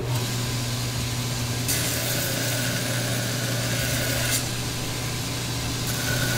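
Belt grinder motor running with a steady hum while a forged 1095 steel knife blade is pressed to the abrasive belt for a profile grind. The steel on the belt makes a hiss, once from about two seconds in to about four and a half, and again from near the end.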